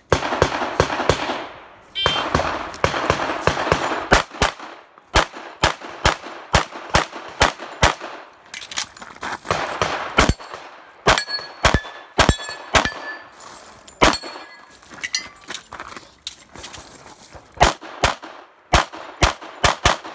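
Rapid pistol fire on a USPSA practical shooting stage: fast strings of shots with brief pauses between positions. In the middle some hits are followed by short metallic rings from steel targets.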